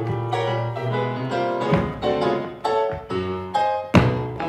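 Piano music, a run of short notes and chords, with two sharp percussive hits, one a little under two seconds in and one near the end.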